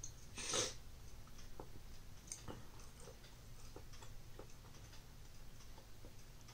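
A short breathy burst about half a second in as a swig from a plastic juice bottle ends, then faint, even ticking at about three ticks a second.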